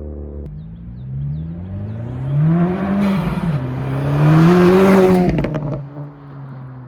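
2024 Acura Integra Type S 2.0-litre turbocharged four-cylinder running through an MBRP Armor Pro cat-back exhaust with carbon fibre tips. The engine revs up, dips briefly and climbs again, then drops back to a low run about six seconds in.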